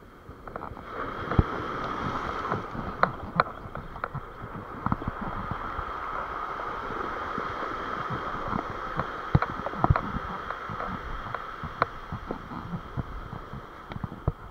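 Surf washing up and over a sand-and-pebble beach, a steady rushing wash that builds about a second in and eases near the end, with scattered sharp clicks and knocks of rod and reel handling close to the camera.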